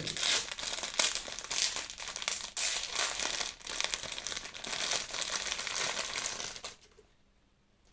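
Packaging being crinkled and crumpled by hand as an item is unwrapped, a dense run of crackles that stops about a second before the end.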